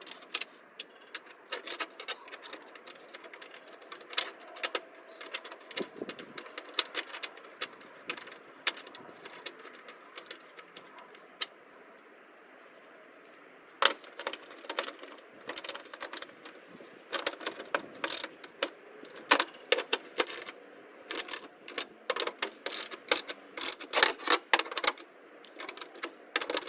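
Irregular metallic clicks and clinks of hand tools, nuts and bolts being handled while a snowblower's control panel is reassembled. The clicks come in uneven flurries, sparser in the middle and busiest in the second half.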